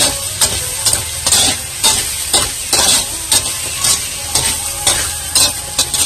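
Sliced hot dogs sizzling in oil in a wok, stirred with a slotted metal spatula that scrapes and clicks against the pan about twice a second.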